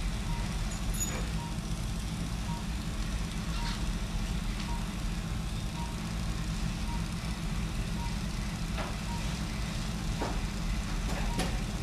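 Operating-room equipment making a steady low hum, with a short electronic beep at one pitch repeating about one and a half times a second, the pulse tone of a patient monitor. A few faint clicks sound over it.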